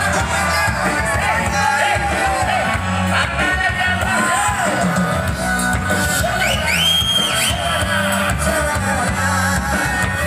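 Live band music with a singer, amplified through a stage PA at loud, steady volume, with a sung melody over a steady bass line. A high gliding note cuts through briefly about six to seven seconds in.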